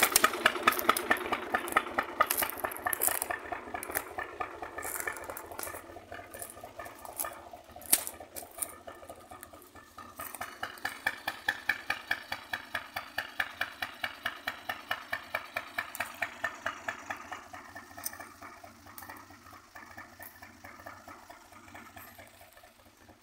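Small tractor's engine idling with an even, rhythmic chug, louder at the start and again from about ten to sixteen seconds in, then fading. A single sharp snap about eight seconds in.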